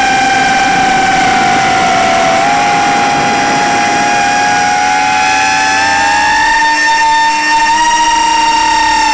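Four-inch FPV quadcopter's 1408 brushless motors and propellers whining steadily in flight. The pitch dips slightly a couple of seconds in, rises from about six to eight seconds in, then eases back down near the end.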